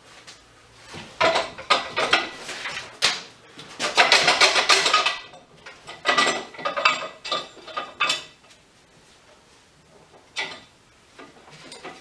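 Steel parts of a hydraulic strut spring compressor clanking and rattling as they are handled and fitted together, in a run of irregular bursts, followed by one short knock near the end.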